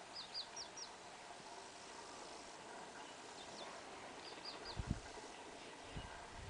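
A bird calling in short, high, falling notes, given in quick runs of three or four, over a faint steady hiss of open bush. A couple of low thumps come near the end.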